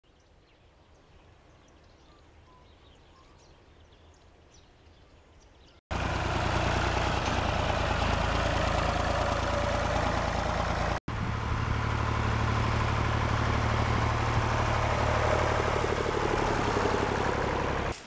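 Faint outdoor background with a few faint high chirps. About six seconds in it cuts abruptly to a tractor engine running steadily together with the small engine of the towed hazelnut harvester, with a brief break about eleven seconds in.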